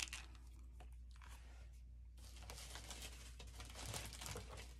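Faint rustling and crinkling of packaging being handled and dug through in a box, busier from about two seconds in.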